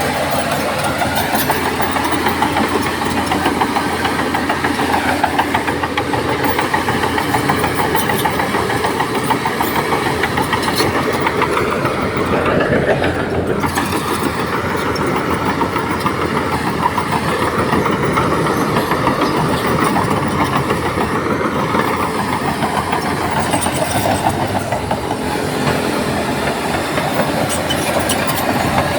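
Heavy diesel earthmoving machinery running steadily: a loud, dense engine and mechanical noise with a few faint knocks.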